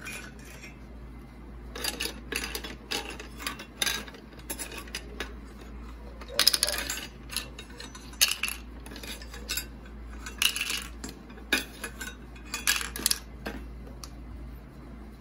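Hard plastic toy kitchenware clattering: a plastic ladle scraping and knocking in a small plastic toy pot and plastic toy food dropping into a plastic bowl. It makes irregular light clicks and knocks, starting about two seconds in and stopping near the end.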